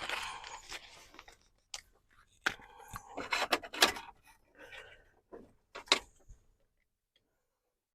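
A foil tuna pouch being opened by hand: crinkling and rustling of the packet, then a run of sharp crackles through the middle, with one last crackle about six seconds in.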